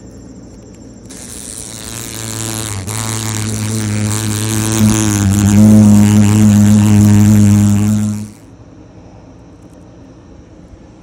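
Black horse fly held between the fingers beating its wings: a loud, low buzz that swells over several seconds and stops abruptly about eight seconds in. A steady high insect trill is heard before and after it.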